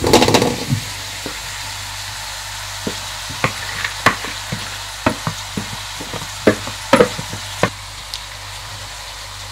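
Cooked basmati rice tipped into a hot wide pan of frying diced vegetables: a short rush as it goes in, then a steady sizzle with scattered light clicks.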